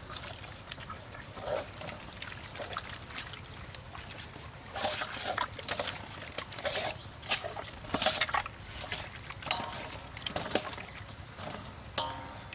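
Raw pork stomach being kneaded and squeezed by hand with salt in a stainless steel bowl: irregular wet squelches and squishes of slippery meat.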